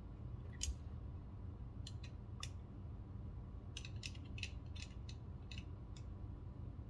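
Faint, sharp little metal clicks of a small screwdriver bit turning and seating the tiny screws on a folding knife's pocket clip and handle. A few clicks are scattered through the first half, then a quicker run of about ten comes near the end.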